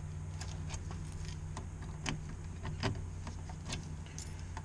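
Scattered light footsteps and small handling clicks, irregular and about one every half second, over a steady low hum.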